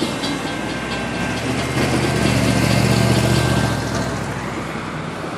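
An old Class C motorhome drives past close by over the crossing, its engine hum building to its loudest about halfway through and then fading. During the first second a railroad crossing bell rings quickly and evenly, then stops as the crossing clears.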